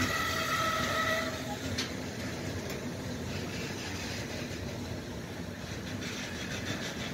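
Intermodal freight train of pocket and container wagons rolling past at close range. There is a high squeal of several tones for about the first second, then steady wheel-on-rail rolling noise with faint knocks.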